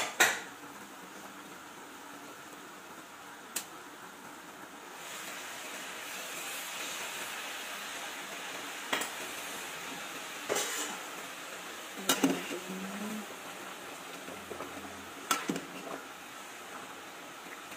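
Kitchen dishes and utensils being handled: a handful of separate clinks and knocks scattered over a steady hiss that grows slightly louder about five seconds in.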